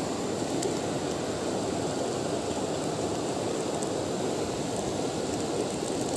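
Steady rush of flowing river water, an even wash of noise with no change throughout.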